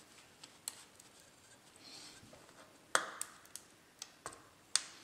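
Small sharp clicks and taps as a laptop's copper heat-pipe heatsink and fan assembly is worked loose and lifted off the motherboard. About half a dozen clicks, the loudest about three seconds in and just before the end.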